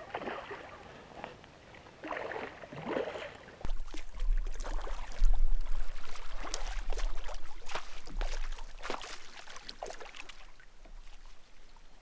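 A hooked smallmouth bass splashing at the surface as it is played in, then a run of splashes and knocks as it is netted, over a low steady rumble on the microphone that starts abruptly a few seconds in.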